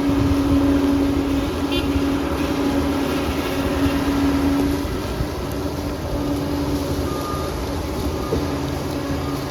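A Liebherr bulldozer's diesel engine running steadily under load: a low rumble with a held whine that breaks off and returns a few times in the second half.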